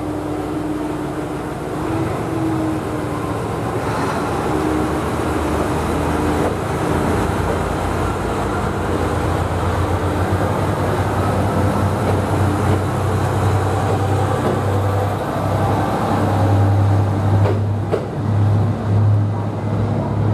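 ET122 Setsugekka diesel railcar moving off along the platform: a steady low engine hum under the rolling of its wheels, with a few light clicks. The engine hum swells near the end.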